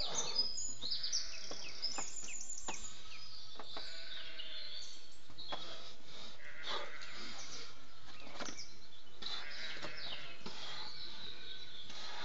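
Small birds chirping in quick high trills over a steady outdoor background hiss, with a few short knocks or scuffs scattered through.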